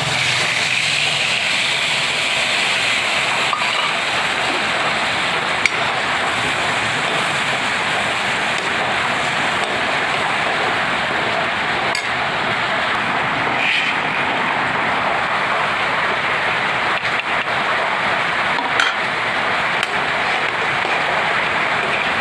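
Tomatoes and onions sizzling in hot oil in a kadhai, a steady hiss that starts as they are tipped into the pan, with a few sharp clinks of a steel ladle against the pan.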